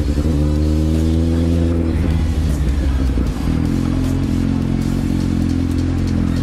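Kawasaki Z750's inline-four engine running under the rider, its revs climbing for about two seconds, then easing off a little past three seconds and holding steady at lower revs.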